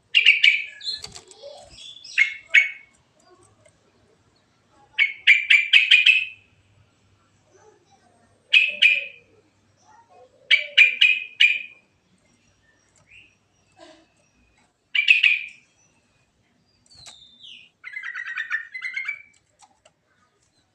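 Yellow-vented bulbul (trucuk) singing: short bubbling phrases of quick notes, repeated every two to three seconds with short pauses between.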